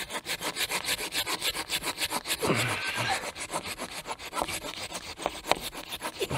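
Cheap hand pruning saw cutting through dead, dry standing wood in quick, even rasping strokes.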